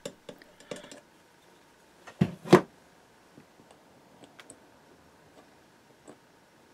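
Small metal parts handled on a workbench as press-fit brass bearings are oiled and set into an aluminium support column: a few light clicks, then two sharp knocks a third of a second apart a little over two seconds in, then faint ticks.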